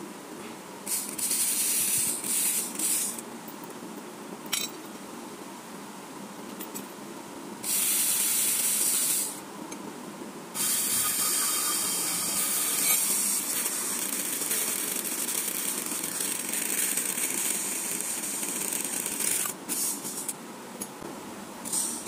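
A thin metal blade sawing and scraping across a plastic tube on a motor shaft, heard as stretches of rasping, hissy noise. The longest stretch starts about halfway through and lasts about nine seconds.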